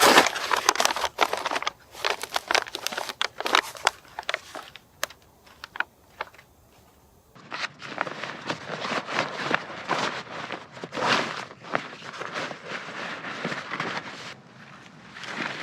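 Small wood fire crackling and popping in an ultralight fire pit, with many irregular sharp snaps. About seven seconds in the sound changes abruptly to a denser, more continuous crackle.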